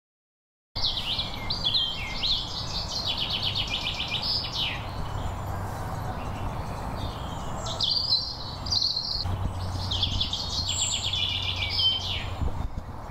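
Woodland songbird singing two long trilled song phrases, the second beginning about eight seconds in, over a steady low background rumble. The sound starts abruptly just under a second in.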